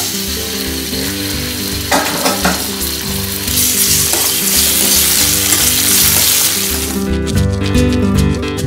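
Chopped tomatoes sizzling in hot oil with mustard seeds, cumin and curry leaves in a steel pan, stirred with a steel ladle that scrapes the pan, most busily near the end. Background music plays underneath.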